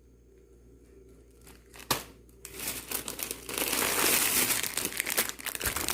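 Plastic grocery packaging crinkling as items are handled, starting about two and a half seconds in after a single sharp click.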